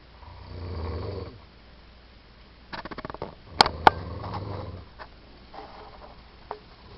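Someone snoring in their sleep: a long, low snore about a second in, then a fluttering, rattling snore in the middle with two sharp loud clicks, followed by a few small ticks.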